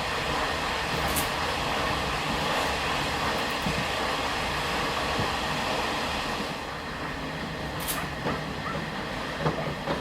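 Old Taiwan Railways ordinary train of non-air-conditioned passenger coaches running along the track: a steady rumble and rattle that drops in level about two-thirds of the way through, with a few short knocks near the end.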